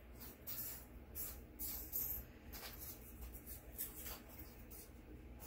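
Scattered short, scratchy rustles of paper and sticker sheets being handled on a planner page, over a faint low steady hum.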